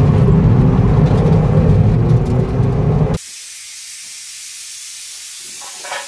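Car engine revving hard under load, cutting off abruptly about three seconds in. A steady hiss follows, with a few light knocks near the end.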